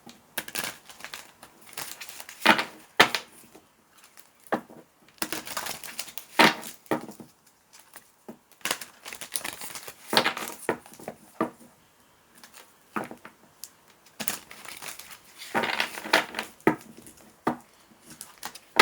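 A deck of angel tarot cards being shuffled by hand: repeated bursts of card snaps and rustles with short pauses between them.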